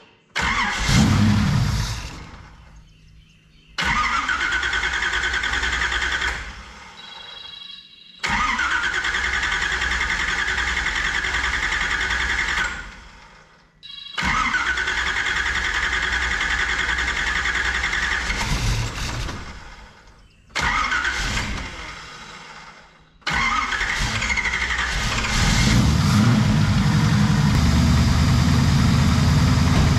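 Carbureted small-block Chevy V8 with a Holley four-barrel, cranked over several times in separate attempts a few seconds long before it starts about 25 seconds in and settles into a steady idle.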